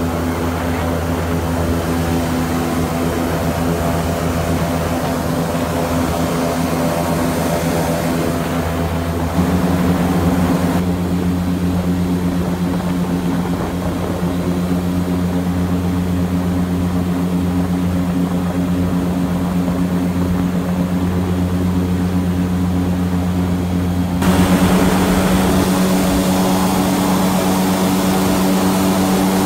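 Airboat's engine and caged propeller running steadily at speed. The engine note steps up twice: about a third of the way in, and again near the end.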